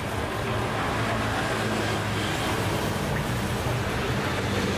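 Steady roadside traffic noise: a constant low engine hum under a wash of street noise.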